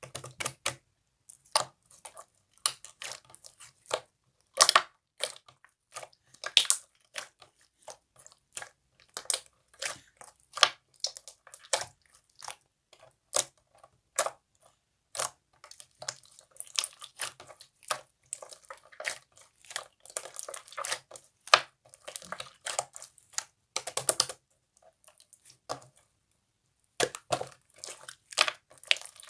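Slime being squeezed and pressed by hand, giving quick, irregular crackling pops and clicks, several a second.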